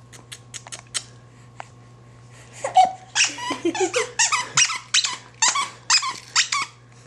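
Baby giggling in a run of short, high bursts that starts a few seconds in, after a few faint clicks.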